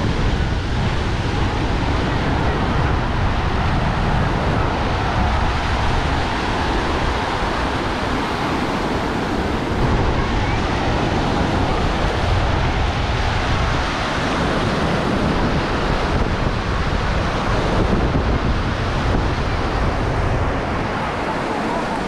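Ocean surf breaking and washing up a sandy beach in a steady wash, with wind buffeting the microphone.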